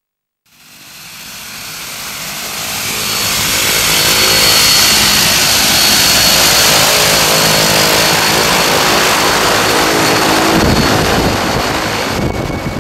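Twin-engine propeller jump plane's engines running close by: a loud, steady engine and propeller noise with a thin high whine, fading in over the first few seconds.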